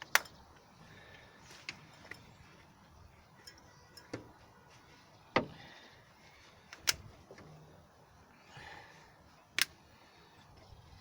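Scattered sharp clicks and knocks of hand tools and small engine parts being handled: about five loud ones spread irregularly, with softer taps between.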